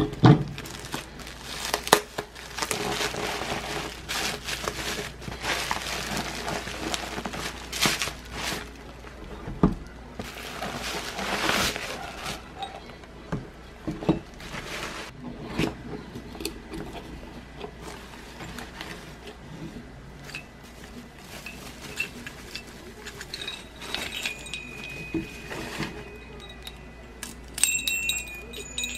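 Plastic wrapping and packing tape crinkling and tearing as a parcel is unwrapped by hand, with light knocks of cardboard boxes being handled. Near the end a small metal wind chime charm starts ringing as it is lifted out of its box.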